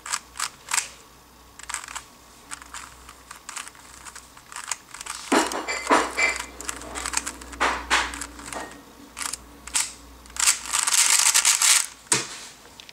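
Layers of a 3x3 speedcube being turned with fingertricks: a string of quick plastic clicks and clacks, with a dense burst of rapid turns near the end, as a PLL algorithm (the F perm) is run through at speed.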